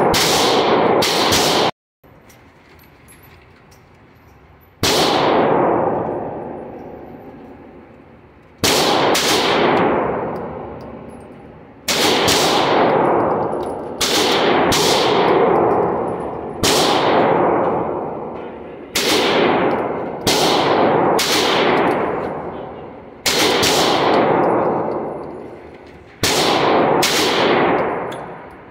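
Slow, unevenly spaced single shots from a GSG 1911 .22 LR pistol, about a dozen, each a sharp crack that rings out in the echo of an indoor range, after a quieter gap of a few seconds early on.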